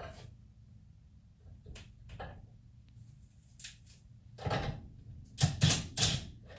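Handling of tools and small fuel injector parts on a workbench: faint fiddling, then a cluster of knocks and clatter from about four and a half to six seconds in.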